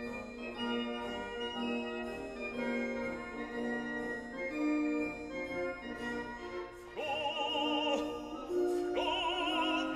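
Background classical music: held organ-like keyboard chords, joined about seven seconds in by an operatic voice singing long notes with wide vibrato.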